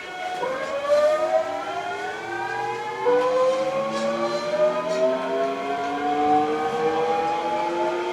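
Toshiba GTO-VVVF inverter and traction motors of a Hankyu 8000 series train whining as the train accelerates, several tones rising together in pitch, with a sudden change in the tone pattern about three seconds in as the inverter shifts its switching mode.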